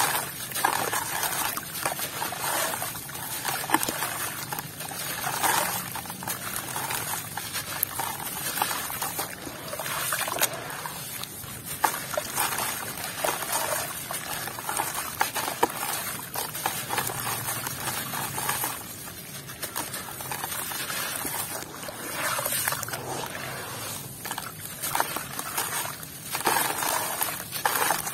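Wet block of sand and fine gravel being squeezed and crumbled by hand, grit and clumps trickling and splashing into shallow water in a plastic tub, in uneven gritty surges.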